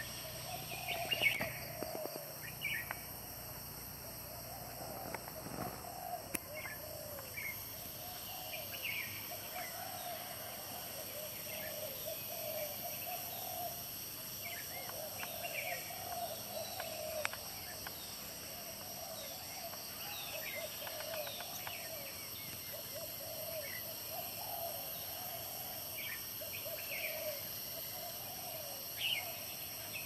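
Morning chorus of birds in tropical forest: many short chirps and warbling calls, with a steady high-pitched hum underneath throughout.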